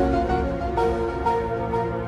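Background music: a steady melody of held notes over a sustained bass.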